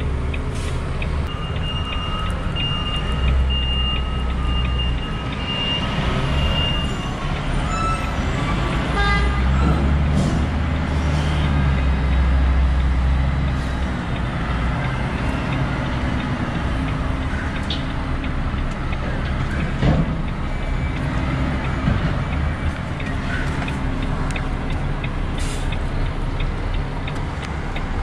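Volvo FH500 truck's 13-litre six-cylinder diesel engine running, heard from inside the cab, its low rumble swelling twice. Over it, for a few seconds near the start, a high warning beeper sounds in short repeated beeps.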